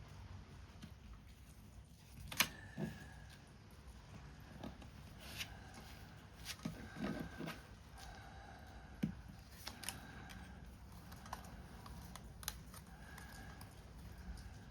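Paper-craft work sounds: scissors snipping and card stock being handled, as irregular sharp snips and clicks, the loudest about two and a half seconds in, over a faint steady background of rain.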